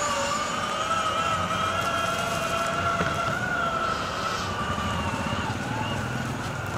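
Boosted electric skateboard's motor whine, a steady high-pitched tone that rises and falls slightly with the board's speed, over the low rumble of its wheels rolling on a concrete court.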